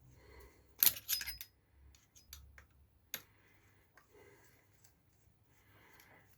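Small sharp clicks and light clatter of hand tools and parts on an RC truck chassis, as the centre chassis brace is being taken off. There is a quick cluster of clicks about a second in, a single click around three seconds, then only faint ticks.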